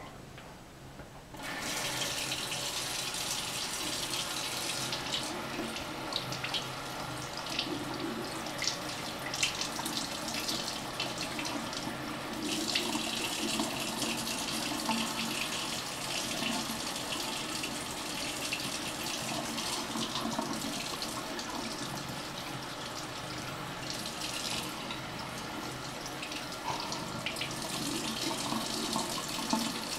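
Bathroom sink faucet turned on about a second and a half in, then running steadily as a thin stream that splashes onto cupped hands and into the basin, with irregular small splashy ticks.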